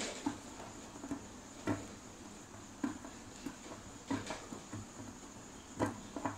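Small sharp clicks and light scraping of a screwdriver turning a screw into a four-stroke carburetor's float bowl, a few ticks spaced irregularly about a second apart.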